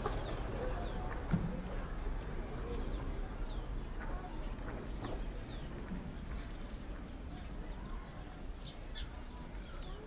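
Cape sparrows chirping: short, high, falling notes, scattered and coming more often in the second half, over a steady low background rumble.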